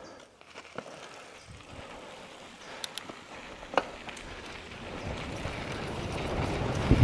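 Mountain bike on a downhill trail: a few scattered clicks and rattles, then a rushing noise that builds steadily toward the end as the bike gathers speed.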